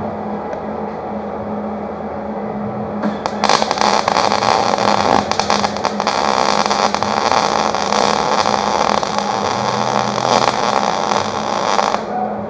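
Electric arc welding on steel: the arc strikes about three seconds in and crackles steadily for about nine seconds as a bead is laid, then cuts off sharply.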